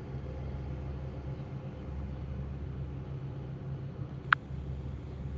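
Steady low hum inside a stationary car's cabin, with one short sharp click about four seconds in.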